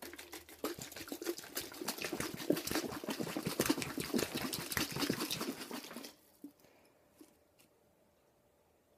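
Water squirted and spattering in rapid crackly spurts, mixed with the crackle of a squeezed clear plastic bottle, for about six seconds before it stops.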